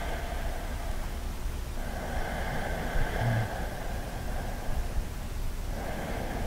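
Slow ujjayi breathing: long, audible breaths drawn through a narrowed throat, with a soft hiss, one after another.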